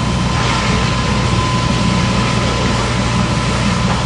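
Heavy truck engine idling steadily, with a thin steady whine above the low rumble.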